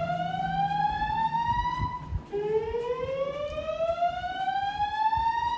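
System Sensor SpectrAlert Classic fire alarm speakers sounding the slow whoop evacuation tone, a slowly rising pitch sweep. One sweep ends about two seconds in, and the next begins just after and climbs steadily.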